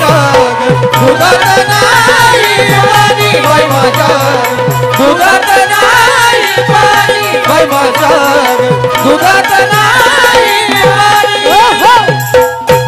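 Marathi folk song music: an ornamented melodic line that bends in pitch, over a steady held note and continuous hand percussion.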